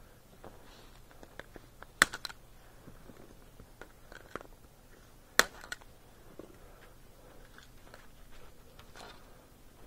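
Scattered clicks, rubs and crunches of gloved hands handling snow-covered maple sap mainline tubing and its support wire, with two sharp knocks, about two seconds and about five seconds in.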